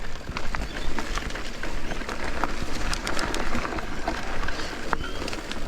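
Mountain bike rolling along a dirt trail: tyre noise over gravel and roots, with many sharp clicks and rattles from the bike over bumps and a steady low rumble of wind on the microphone.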